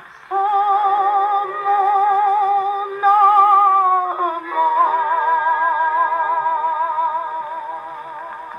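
Columbia Model AH acoustic horn gramophone playing the closing bars of a 1930s French chanson record. Long held notes with vibrato move to a final chord about halfway through, which fades toward the end.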